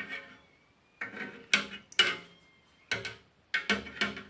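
A homemade metal curd cutter made from skewers knocking and scraping against the metal pot as it is drawn through freshly set milk curd. The clatters are irregular and sharp, and a couple leave a brief metallic ring.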